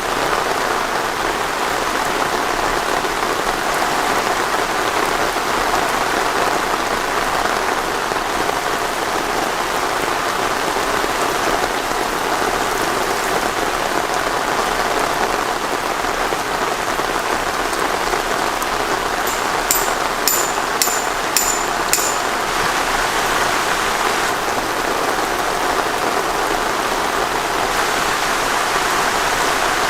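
Steady rain falling, an even rushing hiss, with a brief run of about six sharp ticks about two-thirds of the way through.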